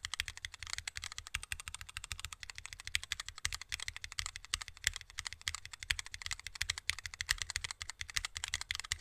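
Continuous fast typing on a keyboard: a dense, unbroken run of key clicks, many a second.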